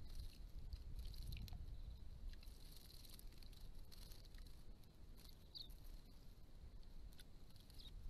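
Small birds, silvereyes, splashing while bathing in a shallow pond, a light irregular patter of water and wing flicks, with a couple of brief high chirps.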